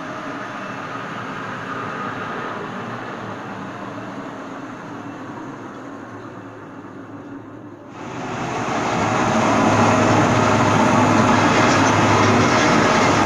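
Large metal lathe running with a steady mechanical rumble that eases off. About eight seconds in the noise jumps up within a second or so to a much louder steady run, as if the spindle has been started or brought up to speed.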